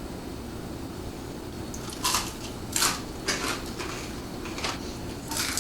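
Mouth sounds from people eating spicy pizza: about five short hissing sounds, starting about two seconds in, over a steady low room hum.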